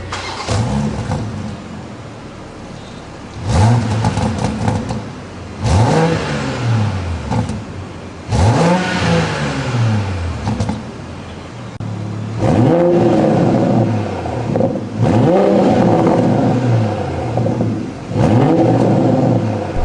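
BMW X3 M40i's turbocharged 3.0-litre inline-six, heard through a valved stainless-steel catback exhaust with mid pipe, being free-revved about seven times, each rev rising and then dropping back toward idle, a few held high for a second or two.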